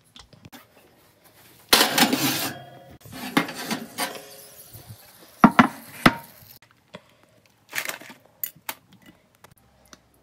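Utensils scraping and knocking against a ceramic baking dish as filling is spooned into acorn squash halves, with two sharp clinks a little past halfway.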